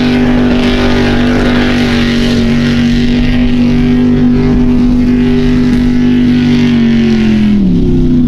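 A Formula Offroad competition car's engine is held at high, nearly steady revs while its wheels spin and churn through soft dirt. Near the end the revs fall away.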